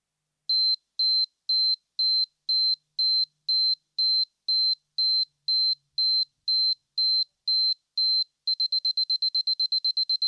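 Camera self-timer beeping: a single high-pitched beep about twice a second, which speeds up to rapid beeping about 8.5 seconds in, the countdown's signal that the shutter is about to fire.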